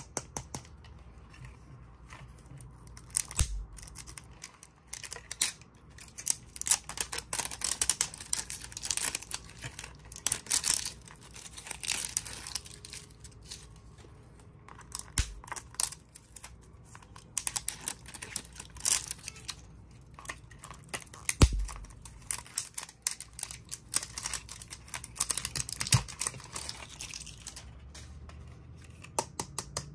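Hands handling a hard plastic toy car and its card tag: irregular rustling and crinkling with many small plastic clicks and taps, and a few low thumps.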